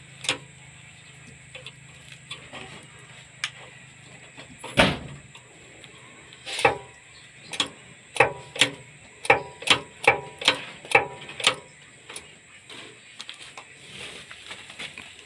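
Sharp metal knocks and clicks from hands working the linkage at a Nissan Kondor dump truck's hydraulic pump: scattered at first, then a quick run of about eight knocks some two-thirds through. A low hum in the first third ends with a heavy thump about five seconds in.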